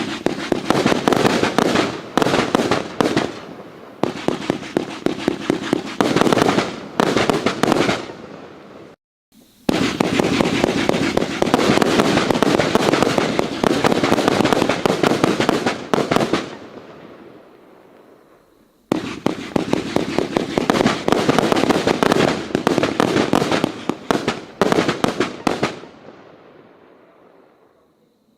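Riakeo firecracker rolls going off: long, dense chains of rapid bangs, in three runs that each tail off before the next begins abruptly.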